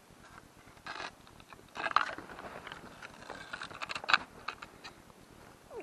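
Irregular scraping and crunching with sharp clicks from handling on the slushy, crushed ice around an ice-fishing hole. The loudest clicks come about two seconds in and just after four seconds.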